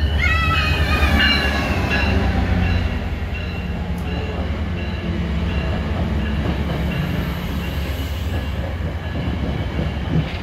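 Virginia Railway Express commuter train pulling into the station: the diesel locomotive's low rumble passes, then the bilevel passenger cars roll by as the train slows to stop. High squealing tones slide downward in the first couple of seconds, and a steadier high squeal runs on under the rolling noise.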